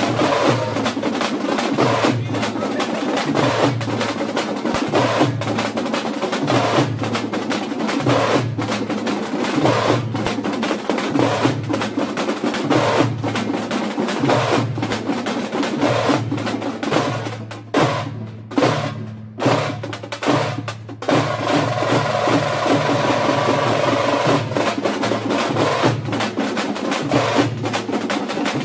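An ensemble of tamate frame drums and barrel drums beaten with sticks, playing a fast, loud, dense rhythm over a repeating low beat. About two-thirds of the way through, the playing breaks into a few separated strokes for a few seconds, then the full group comes back in.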